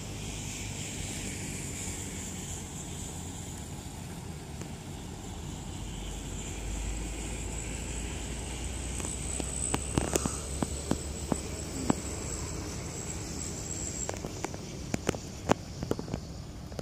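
Yanmar AP4 walk-behind rice transplanter's small engine running steadily at a distance, under wind noise on the microphone. A run of sharp clicks comes in the second half.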